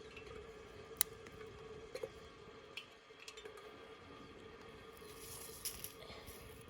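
Small twig fire crackling in the base of a Kelly Kettle: a few sharp pops, the clearest about one and two seconds in, over a faint steady hum.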